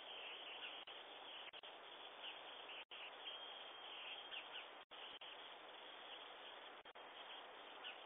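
Faint steady hiss from a Ring doorbell camera's microphone, cut by several brief dropouts in the audio.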